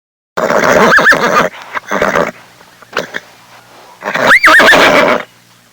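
Horse neighing twice. A whinny with a quavering pitch begins about half a second in, a shorter sound follows, and a second whinny comes about four seconds in.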